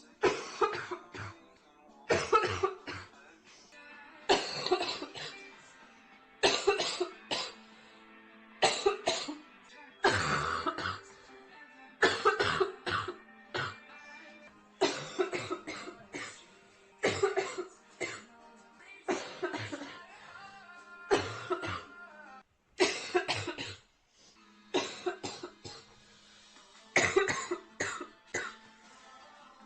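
A girl coughing nearly uncontrollably from a severe chest cold: short clusters of coughs about every two seconds, one fit after another.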